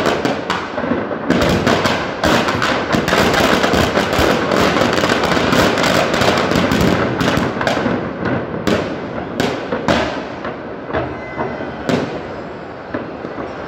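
Firecrackers packed into a burning Ravana effigy going off: a single bang, then a dense crackling barrage of bangs for several seconds, thinning to scattered single bangs near the end.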